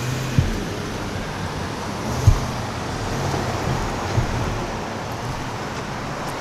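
Road traffic driving across a railroad grade crossing: engines and tyre noise. Three short thumps about two seconds apart are heard as vehicles bump over the rails.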